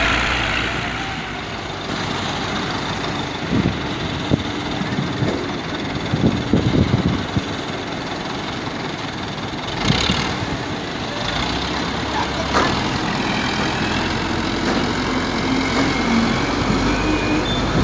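Massey Ferguson 240 tractor's three-cylinder diesel engine running steadily, with a few short knocks and thumps partway through.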